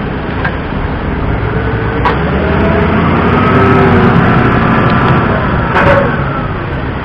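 Aircraft pushback tug's engine running under load as it works the towbar, its note climbing and falling, with a couple of sharp clicks.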